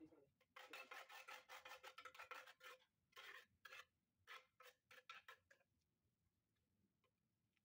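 Faint trowel scraping tile adhesive out of a bucket and spreading it on the back of a mosaic tile sheet: a quick run of scraping strokes, then about six separate strokes that stop near the end.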